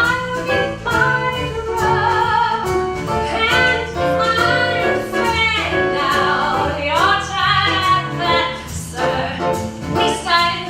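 A woman singing loudly over instrumental accompaniment, her voice sliding through held and bending notes.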